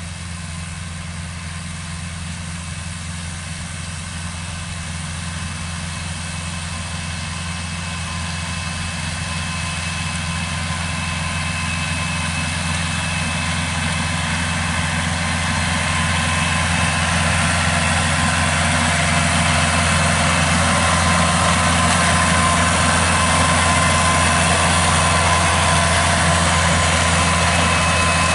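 Kubota diesel tractor engine running steadily under load while tilling a field, growing louder over the first half and then holding steady.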